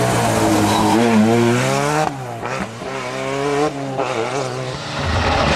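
Ford Sierra Cosworth rally car's turbocharged four-cylinder engine revving hard, its pitch climbing, then the revs falling away twice, about two and four seconds in. Near the end a more distant engine takes over.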